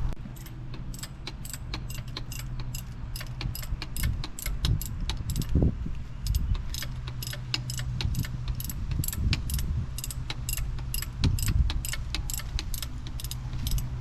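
Ratchet wrench clicking steadily, about three clicks a second, as the seized-up 1943 Farmall H engine is being turned over by hand with its spark plugs out to see whether it is locked up. A low steady hum runs underneath.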